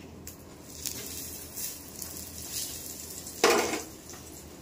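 Dishes and utensils being handled in a kitchen: a few soft clinks and knocks, then a louder clatter about three and a half seconds in.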